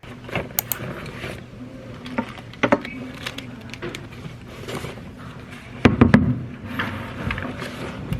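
Kitchen work sounds: scattered clicks and knocks of utensils and dishes over a steady low hum, with a louder clatter about six seconds in.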